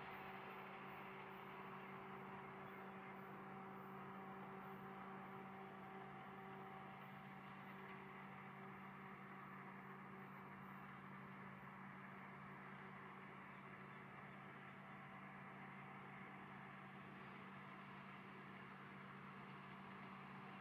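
Faint, steady industrial machinery hum from the plant: a low drone with a few steady tones over an even whir, unchanging throughout.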